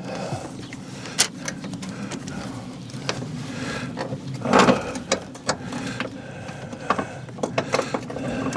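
Hand tools clicking and clinking on metal while the battery hold-down is taken off, irregular sharp clicks a few per second over a steady low hum, with one louder, longer clatter about four and a half seconds in.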